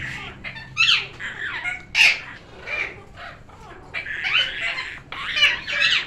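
Young grey African parrots calling: a few short separate calls, then a quicker run of overlapping calls from about four seconds in.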